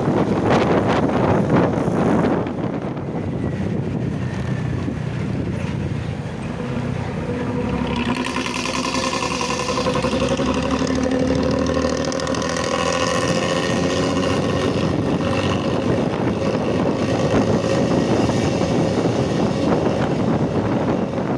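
Intercity bus with a 'ngorok' (snoring) exhaust, its engine running. A loud rushing noise fills the first two seconds. From about eight seconds in, a steady exhaust drone with several stacked pitches builds and holds.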